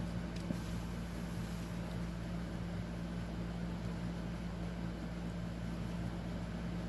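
A steady low hum with a constant hiss behind it, unchanging throughout, with one faint click about half a second in.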